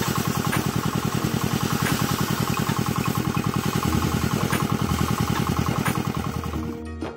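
A heavy machine's engine running steadily with a fast, even pulsing beat and light ticks about every half second. Music comes in near the end.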